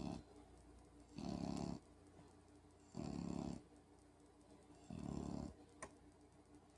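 A sleeping puppy snoring: three short, regular snores about two seconds apart, with the end of another snore at the very start.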